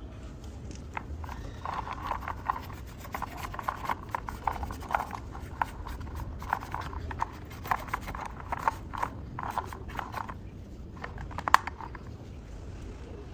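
Hand rubbing and scraping on a small toy model car during cleaning: short scratchy strokes repeating at an irregular pace, with one sharper click near the end.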